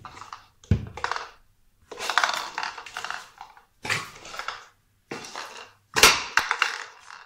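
A Dalmatian puppy biting and batting a small plastic container across a tile floor: several bursts of plastic clattering and scraping, with sharp knocks a little under a second in and near the end.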